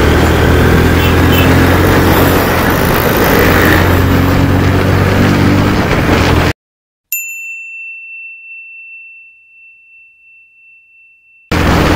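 Motorcycle engine running steadily with road and wind noise. About six and a half seconds in, the sound cuts out abruptly, and a single bell-like ding rings out and slowly fades over about four seconds before the riding noise returns.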